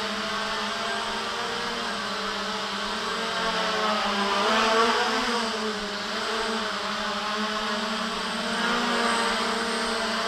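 JJRC X1 quadcopter's brushless motors and propellers buzzing steadily in flight, the pitch swelling briefly about four to five seconds in as it manoeuvres.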